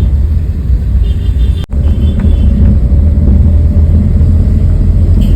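Loud, steady low rumble with a brief break about two seconds in.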